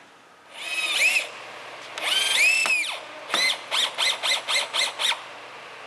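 Power drill motor revving up and down in two short runs, then about seven quick trigger blips in a row.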